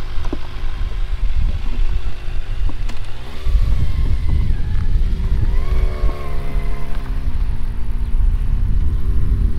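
Kawasaki ZX-25R's 250 cc inline-four running through an Akrapovic full-system exhaust with a dB killer fitted, pulling away for a flyby. The engine pitch climbs about three and a half seconds in and again around six seconds, eases briefly, then rises once more near the end, over a heavy low rumble.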